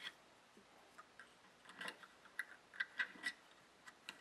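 Faint, scattered small clicks of a metal loom pick against the plastic pegs of a knitting loom as stitches are purled, most of them a couple of seconds in.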